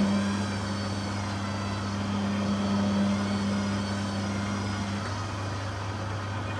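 Beko WTG620M1 washing machine running: a steady motor hum with a faint high whine that wavers slowly in pitch. A stronger drone underneath cuts out about five seconds in.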